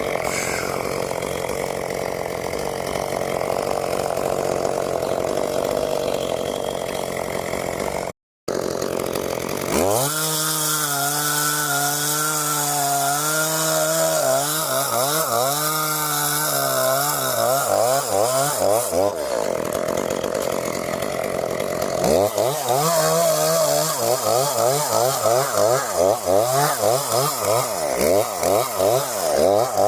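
Gas chainsaw running and cutting into oak wood, its engine pitch wavering as the chain loads and frees up. In the last several seconds the engine speed rises and falls rapidly, several times a second.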